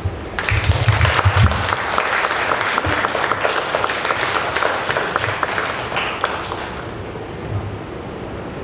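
Audience applauding: many hands clapping at once, starting about half a second in and dying away over the last couple of seconds.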